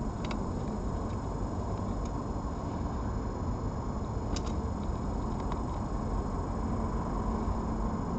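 Steady low rumble of background noise, with a few faint ticks.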